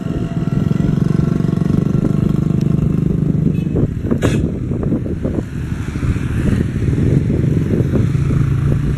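Container freight train's wagons rolling along the rails, a continuous low rumble with rapid clattering of wheels over the track and one sharp clank about four seconds in.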